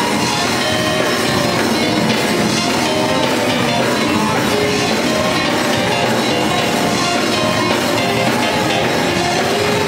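Live gospel band playing an instrumental passage: electric bass guitar, drum kit with cymbals and a keyboard, amplified and steady, with no singing.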